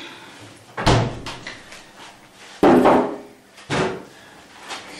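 Three dull thuds, about a second apart, with the middle one the loudest: a refrigerator door being shut and kitchen containers knocking.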